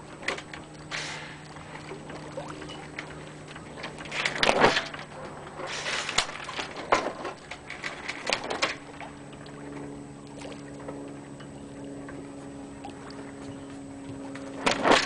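Boat engine running with a steady low hum that shifts in pitch about nine seconds in, out at sea. Several short rushing bursts of noise come over it.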